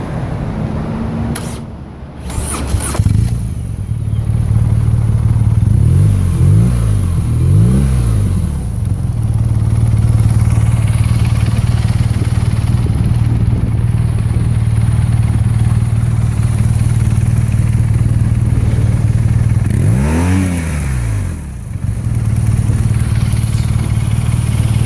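BMW motorcycle engine idling steadily, revved up and back down in three quick throttle blips about six to eight seconds in, and once more about twenty seconds in.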